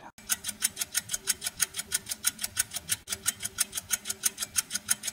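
Clock-ticking sound effect: fast, evenly spaced ticks, about seven a second, over a faint steady tone.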